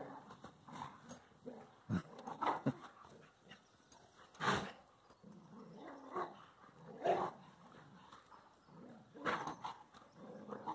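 Two dogs play-fighting, with short growls and grunts at uneven intervals and a short sharp sound about four and a half seconds in.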